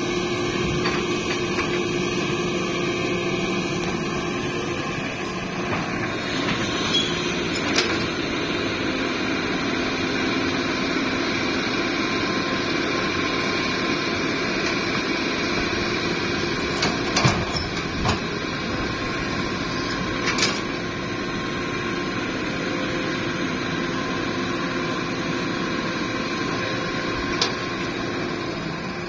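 Hitachi hydraulic excavator's diesel engine running steadily as it digs and swings loads of soil, with a few sharp knocks, the loudest about seventeen seconds in.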